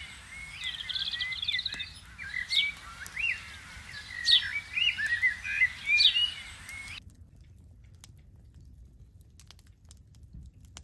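Small birds chirping in repeated short rising calls, with a quick trill about a second in. About seven seconds in the birdsong stops abruptly, leaving faint crackling from a small wood fire burning in a folding fire pit.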